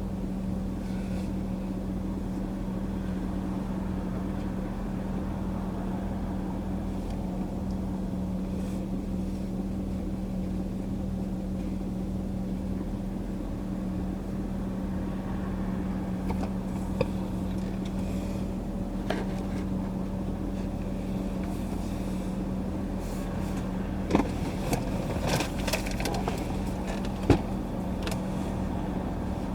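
Car idling, heard from inside the cabin: a steady low hum, with a few small clicks and knocks in the second half.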